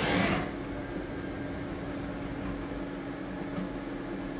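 Smart SV-2 vertical machining center running a tool-probe cycle, its spindle head moving down toward the tool-setting probe with a steady hum. A short hiss comes right at the start, and a small click about three and a half seconds in.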